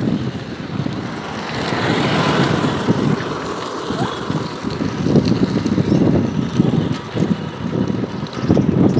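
Wind buffeting the microphone and road noise from a moving bicycle, with motor traffic on the road around it.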